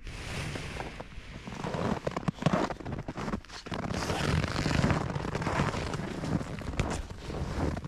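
Crunching and crackling of dry, deeply frozen snow, packed down under footsteps and by cattle moving close by, a dense run of small crackles and soft thuds.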